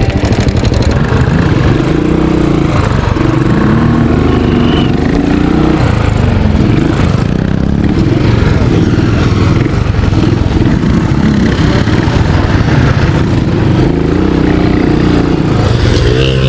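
Motorcycle engines running at low speed on grass, revving up and dropping back over and over, with the rider's own bike close by.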